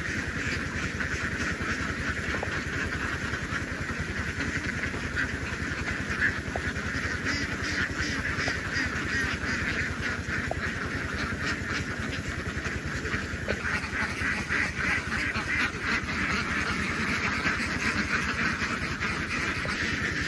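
A large flock of ducks quacking all at once, a dense, unbroken chorus of overlapping calls over a steady low rumble.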